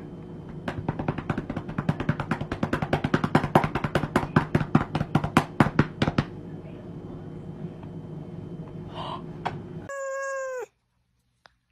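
Rapid patting of a hand on a cat's fur, about eight quick pats a second, for roughly five seconds. Near the end a cat gives a short meow that falls in pitch.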